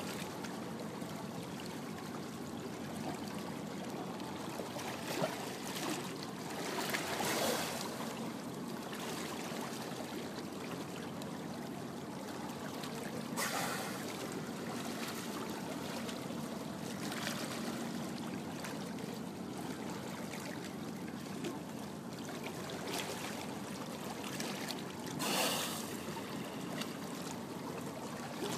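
Water rushing and trickling along a moving boat's side and around a swimming sea lion, over a faint steady low hum, with three brief louder rushes of water noise spread through.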